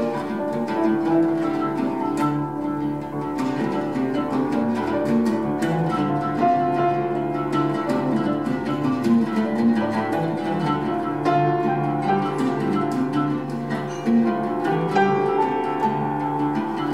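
Live duet of oud and grand piano: the oud is plucked with a plectrum in dense, continuous runs of notes, with longer low notes held beneath.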